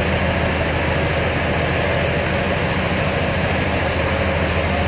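Railway station ambience: a steady low mechanical hum with an even hiss over it, unchanging throughout.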